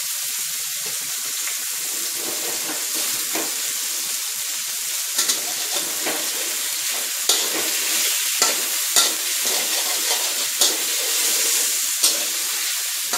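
Diced pork belly sizzling in hot oil in a wok as it renders out its fat. A metal spatula scrapes and knocks against the wok as the pork is stirred, the knocks coming about once a second from about five seconds in.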